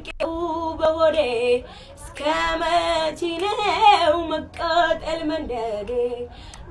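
A young girl singing solo in long, wavering phrases, with a short break about two seconds in.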